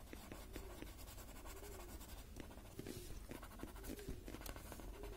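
Faint scratchy rubbing of a paper blending stump (tortillon) on a paper Zentangle tile, in short repeated strokes, blending graphite shading.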